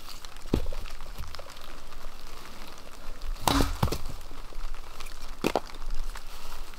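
Small firewood being split into kindling with a blade. Sharp cracks of the blade biting and the wood splitting: one about half a second in, a louder pair near the middle and another near the end, over a steady hiss.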